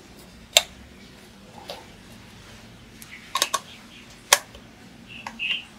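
Scattered sharp clicks and knocks of hard plastic as the clear dust cup and filter of a cordless mini vacuum cleaner are handled and fitted onto its body. The loudest snaps come about half a second in and about four seconds in, and a short squeak follows near the end.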